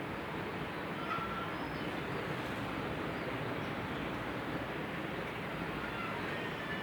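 Steady background noise, with a couple of faint short bird-like chirps about a second in and near the end.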